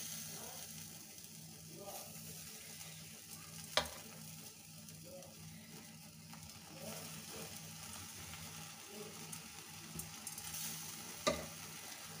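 Marinated chicken pieces sizzling on a wire grill over an open gas burner flame, under a steady low hum. Two sharp pops stand out, one about four seconds in and one near the end.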